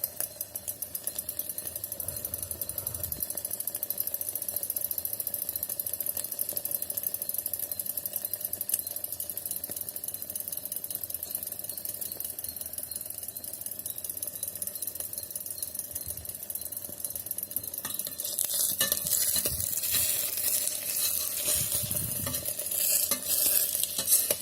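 Egg frying in oil in the pot of an electric kettle, sizzling and crackling steadily. About three-quarters of the way in the crackle grows louder and more uneven, with a few knocks.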